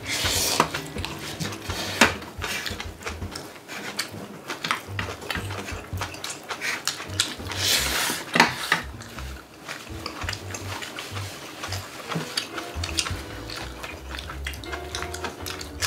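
Chopsticks and spoons clicking against bowls, plates and a metal pan during a meal, with eating noises, louder just after the start and again about eight seconds in.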